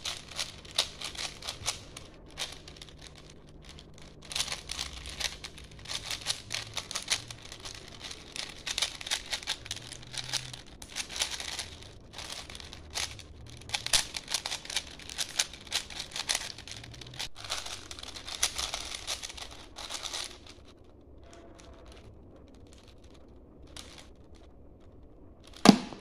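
A plastic 4×4 Rubik's cube being turned quickly by hand: fast runs of clicking and clacking as the layers turn, stopping about twenty seconds in. A single short, loud hit comes near the end.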